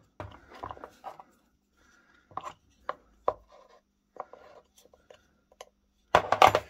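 Small metal hand tools and pistol parts clicking and knocking on a workbench, with scattered single taps and a louder clatter of rapid knocks near the end.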